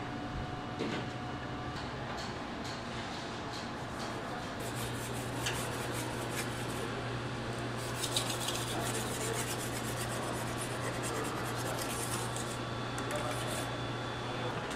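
Knife blade being sharpened on a whetstone: a run of repeated scraping strokes of steel across the stone, starting about a third of the way in and stopping shortly before the end.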